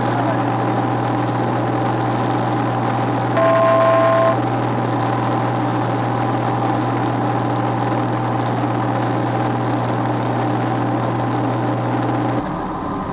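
Light single-engine propeller aircraft's engine and propeller droning steadily in flight, heard from inside the cockpit. A short two-tone electronic beep sounds once, a few seconds in, and the low hum drops away suddenly near the end.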